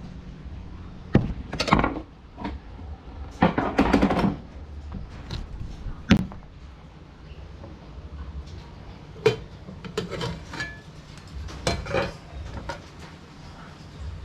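Clatter of pots and utensils being handled: scattered knocks and clinks, with two longer rattles about two and four seconds in.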